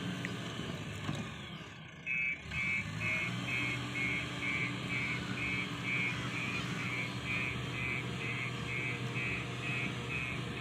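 A reversing alarm beeps steadily about twice a second over a low engine hum. The beeping starts about two seconds in, as a backhoe loader's does when it backs up.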